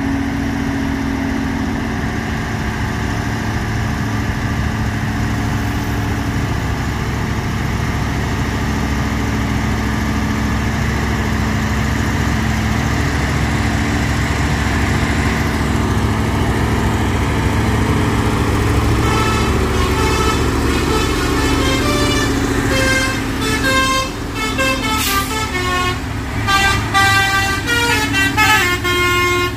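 Heavy trucks' diesel engines running steadily under load as they climb slowly. From about two-thirds of the way in, a vehicle horn sounds a quick run of changing notes, like a multi-tone musical horn.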